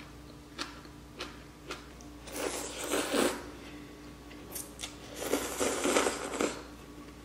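Ramen noodles being slurped into the mouth twice, each slurp about a second long, after a few light clicks.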